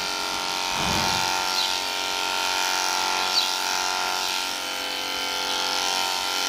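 Electric horse clippers running with a steady buzz while being drawn through a horse's belly coat, with two brief high chirps partway through.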